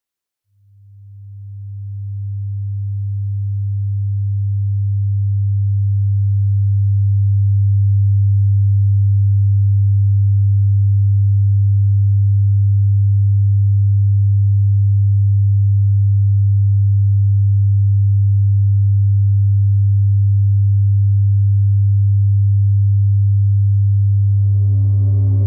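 A deep, pure, steady drone tone, the film's soundtrack, fades in over the first few seconds and then holds level. Near the end, higher ringing tones join it.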